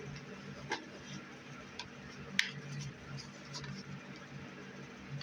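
Scattered plastic clicks and knocks from disposable cameras being handled and packed into a bag, with one sharper click about halfway through, over a low steady hum.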